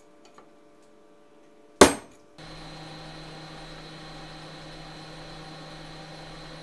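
A single sharp metallic clank about two seconds in. Then a drill press starts running steadily for the rest of the time, drilling into an aluminum part.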